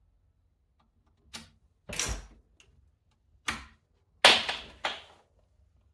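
Five separate sharp clacks and knocks, the loudest about four seconds in: hands working the laptop's keys and case as it is restarted for its first boot.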